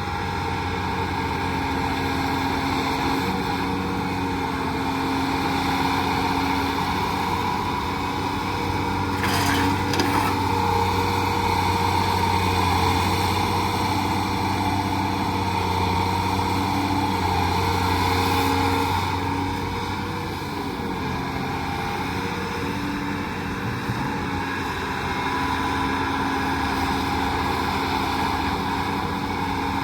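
Heavy diesel engine running steadily under load, its note holding with small shifts in pitch, with a couple of brief hissing surges about a third and two thirds of the way through.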